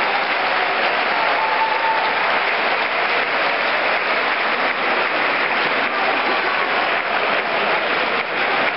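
Crowd applauding steadily: dense, continuous clapping from many people.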